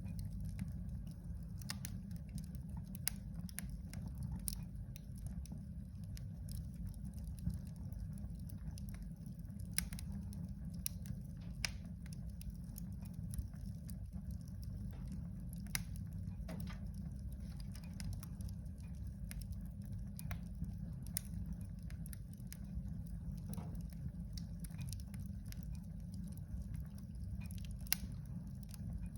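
Wood fire crackling in a fireplace: irregular sharp pops and snaps, a few louder than the rest, over a steady low rumble.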